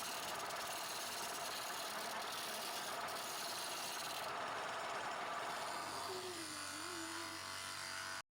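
Wood being turned on a lathe: a steady scraping hiss of a turning tool cutting the spinning wood. After about six seconds the cutting eases and a low motor hum comes through, then the sound cuts off suddenly.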